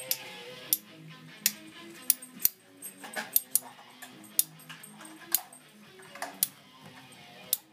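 Two Beyblade tops, Poison Serpent and Evil Gemios, clashing as they spin in a plastic stadium: sharp clacks at irregular intervals, about once a second, over background music.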